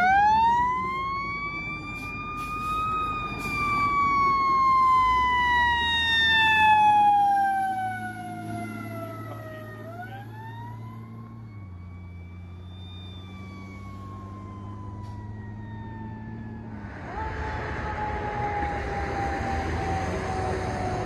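Fire department tender's siren on wail, sweeping up quickly and falling slowly in long cycles, with the truck's engine running underneath as it passes. Near the end another siren comes in on a falling sweep over a rushing noise.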